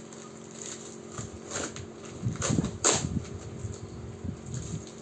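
A heavily taped parcel's plastic wrapping and packing tape being handled and pulled at by hand, giving irregular crinkling and tearing noises that are loudest in the middle.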